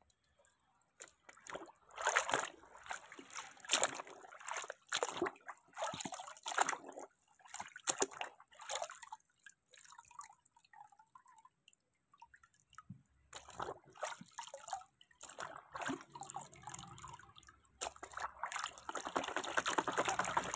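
Water splashing, sloshing and dripping as a plastic toy airplane is dipped and swished by hand in muddy water to wash off the mud. The splashes come irregularly, thin out in the middle, and grow busier near the end.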